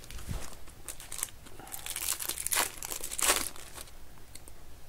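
Foil wrapper of a silver baseball card pack being torn open and crinkled by hand, in a run of irregular crackles that are loudest a little past the middle.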